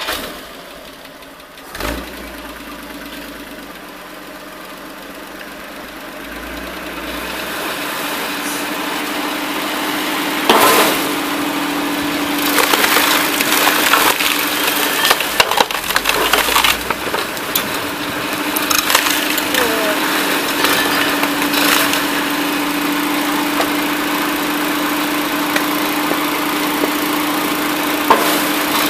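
Motor-driven cone wood splitter running steadily, the engine note building after several seconds as the threaded cone is fed. Rounds of wood crack and splinter apart against the cone in repeated sharp cracks.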